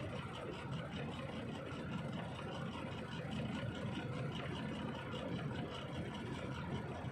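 Steady engine and road noise of a truck on the move, an even rumble with no changes in pace or pitch.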